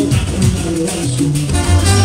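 Salsa band playing, with a moving bass line under rhythmic hand percussion, and held horn or voice notes coming in near the end.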